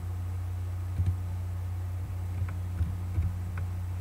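A few separate computer keyboard keystrokes: one about a second in, then a quick handful near the end, over a steady low hum.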